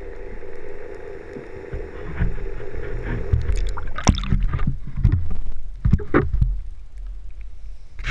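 Muffled underwater sound with a steady hum. About four seconds in the hum stops and irregular splashes and knocks follow as the camera in its waterproof housing breaks the surface and is handled at the side of the boat.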